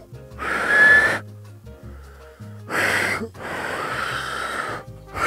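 Air blown hard past two fingers held in the mouth in failed attempts at a finger whistle: three long breathy rushes. The first catches a brief thin whistle tone about a second in. Background music plays underneath.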